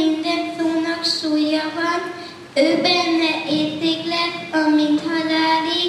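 Children's voices singing a slow melody into microphones, holding long steady notes, with a short break between phrases about halfway through.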